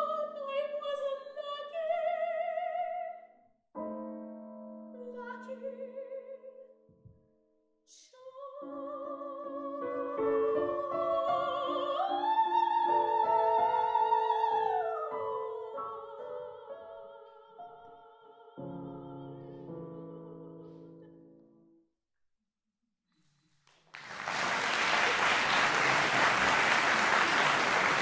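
Soprano voice with wide vibrato singing the final phrases of an art song over grand piano, rising to a held high note about twelve seconds in, then low piano notes closing the piece. After a brief silence, audience applause breaks out near the end.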